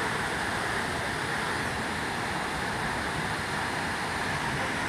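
Athirappilly Falls, a large waterfall, giving a steady, even rush of falling water.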